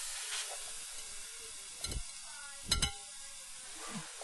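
Material burning under the glass tray of an unplugged microwave sizzles and hisses, slowly dying away. Two sharp knocks come about two and three seconds in.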